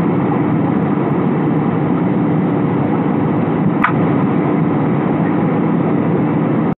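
Steady cabin noise of a jet airliner in flight, the even rush of its engines and the airflow, with one brief faint click about four seconds in.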